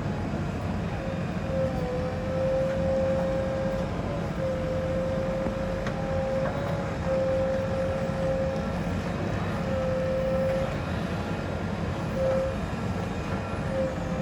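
Backhoe loader's diesel engine running steadily under work, with a whine that breaks off and returns several times.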